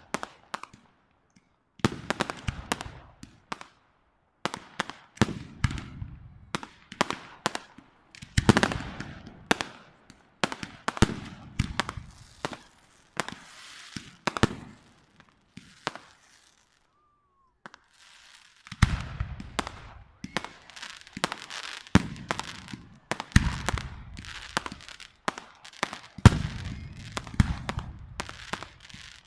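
Fireworks display: aerial shells bursting in rapid runs of sharp bangs and crackles, with a low rumble after the heavier ones. Two short lulls break it, one near the start and one just past halfway.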